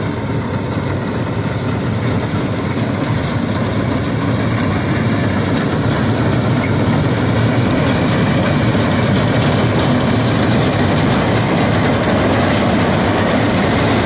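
Swaraj 8100 EX combine harvester running steadily as it cuts and threshes wheat. The machine noise grows louder over the first half as the combine draws close, then holds.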